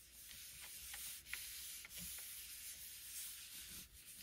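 Palms rubbing and smoothing a sheet of old sheet-music paper pressed onto a gel printing plate to pull a print: a faint, steady scuffing of skin on paper.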